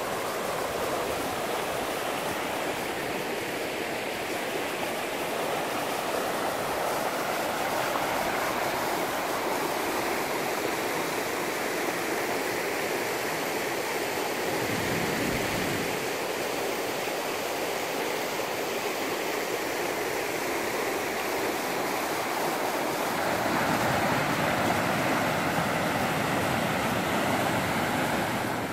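River rapids: white water rushing steadily over rocks and ledges, a continuous roar of churning water. A short low bump comes about halfway through, and the rush grows a little louder near the end.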